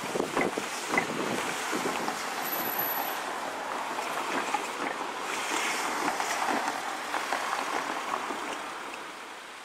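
Seibu 6000 series electric train running along the track as it pulls away, with sharp clicks about half a second and a second in. The sound fades near the end.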